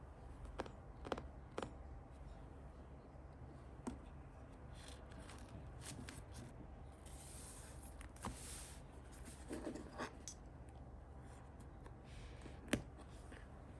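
Quiet stationery handling while decorating a paper planner: scattered light taps and clicks with a few brief scratchy rubs of paper, and one sharper tap near the end.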